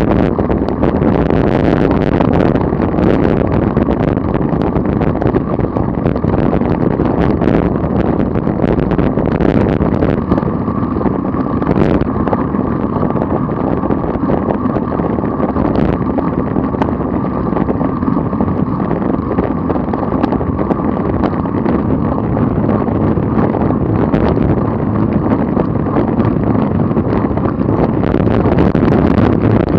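A motor vehicle's engine and road noise at a steady cruise of about 25 mph, with wind rushing over the microphone.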